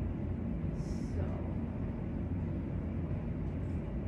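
Steady low room hum, with a brief soft hiss about a second in.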